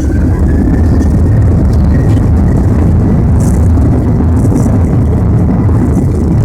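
Boeing 737-900ER's CFM56-7B jet engines at takeoff power, heard inside the cabin: a loud, steady low rumble, with a faint rising whine as the engines spool up at the start.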